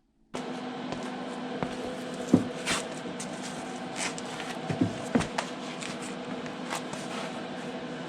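Steady electrical hum and hiss from welding equipment, broken by scattered clicks and a few soft knocks, the louder ones around two and five seconds in.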